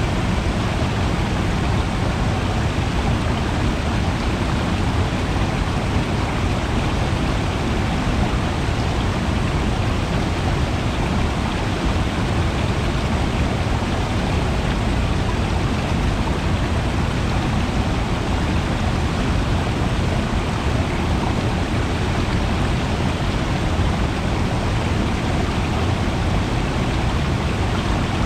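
Steady rush of flowing water, loudest in the low end.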